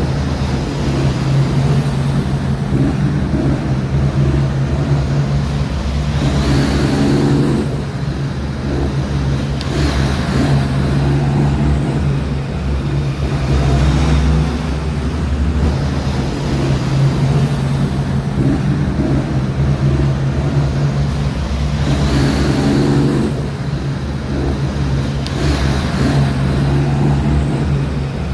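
Heavy diesel truck engine running steadily in road traffic, a deep constant drone with brief swells every few seconds.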